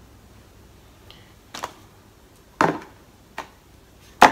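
Handling noise from a compact weapon light and its packaging being picked up and set down: four short knocks and clicks spaced about a second apart, the loudest near the end.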